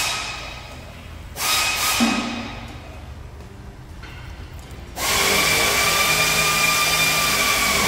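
Diesel fuel pouring and splashing out of a fuel tank's pump module into a plastic tub, carrying black sludge from the tank. Two short surges come early, then a louder steady rush begins about five seconds in as the module is tipped further.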